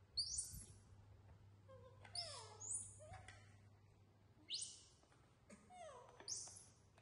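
Young macaques giving about five short, very high-pitched squealing calls, several sliding down in pitch.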